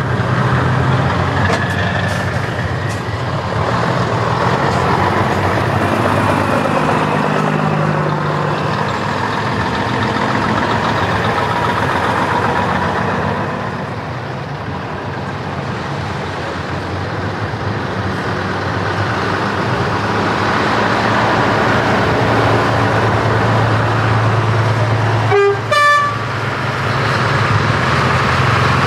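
A convoy of heavy trucks drives past with diesel engines running, their engine notes rising and falling as each passes. About 25 seconds in, a short air-horn toot sounds over the engines.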